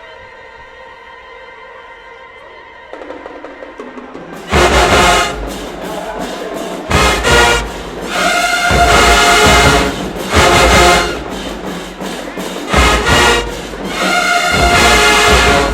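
Marching band brass and drums playing a loud fanfare: a few seconds of quiet held tones, then about four seconds in loud brass blasts with heavy drum hits, alternating short punches and longer held chords.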